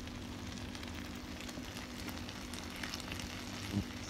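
A pan of cooked rice and vegetables sizzling softly while a spoon stirs through it, with a soft knock from the spoon near the end.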